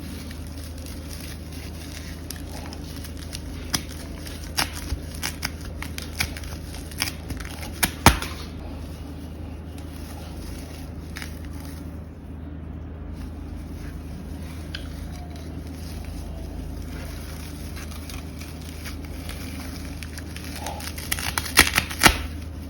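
Victorinox Hunter XT pocketknife blade cutting through coconut fibre (coir) rope, the fibres crackling and snapping as they part. There are two bouts of cutting, a longer run of crackles and snaps about four to eight seconds in and a short burst near the end.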